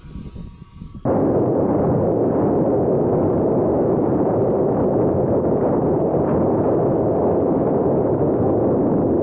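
Loud, steady rush of wind buffeting a camera mounted on a fast-flying RC plane, starting abruptly about a second in after a quieter stretch.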